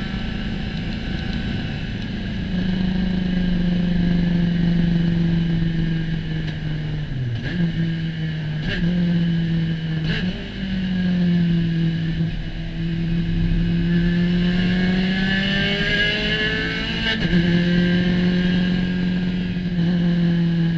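Spec Racer Ford Gen 3 race car's four-cylinder engine running hard at racing speed, its note steady for long stretches. Through the middle it dips and climbs back several times as the driver works through gear changes, with a few short clicks among them.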